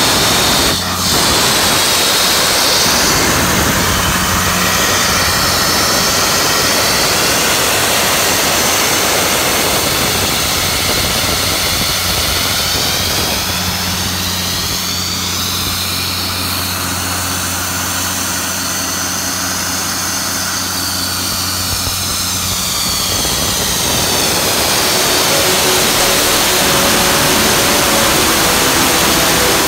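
2000 Ingersoll-Rand HR2 900/350 portable air compressor running under its diesel engine on a test run. A loud, steady low hum lies under a broad rushing noise.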